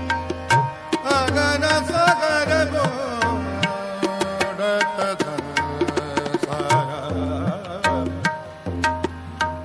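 Shabad kirtan music: tabla playing a steady rhythm of sharp strokes and low bass-drum thumps under a held melody with wavering ornaments.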